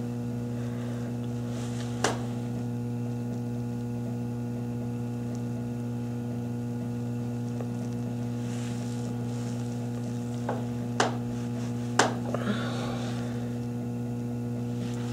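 Steady electrical mains hum, with a few sharp clicks and two brief rustles as the poodle's hair is combed and banded.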